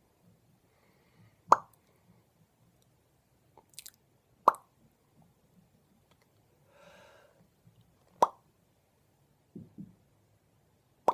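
A person making loud, sharp popping sounds with the mouth, one pop every three seconds or so.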